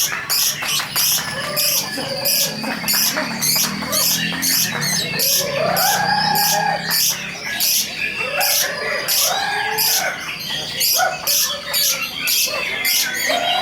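Lovebird 'ngekek': a long unbroken run of shrill chattering, about three to four sharp notes a second, with lower, drawn-out notes mixed in a few times.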